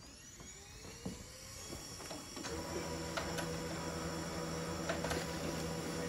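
Samsung ML-2525W laser printer starting up to print a page: its motors spin up with a rising whine, then about two and a half seconds in the feed mechanism starts running with a steady hum and scattered clicks.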